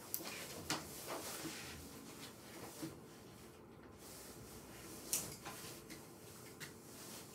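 Quiet room tone with a faint steady hum and a few light clicks and knocks scattered through it, the loudest about five seconds in.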